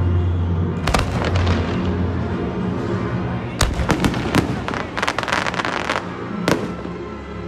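Aerial fireworks shells bursting overhead: a bang about a second in, a quick run of bangs between three and a half and four and a half seconds, then crackling, and another bang near the end. Music with a heavy bass line plays underneath.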